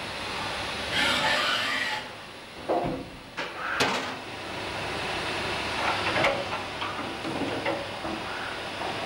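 Riello VFX 300 rotary transfer machine machining brake master cylinder bodies: steady machine noise with a hissing burst about a second in, then a series of metallic clicks and clunks, the sharpest near four seconds in.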